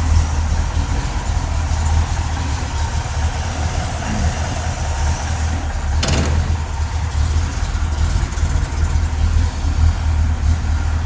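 1966 Chevrolet Corvette's V8 idling steadily with a low chugging, still cold shortly after a cold start. A single sharp click comes about six seconds in.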